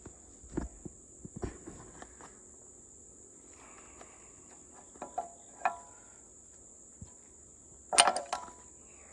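Crickets trilling steadily in the background while a wrench clinks against a hydraulic hose fitting, a few scattered clicks and then a louder cluster of metal clinks near the end as the line is broken loose.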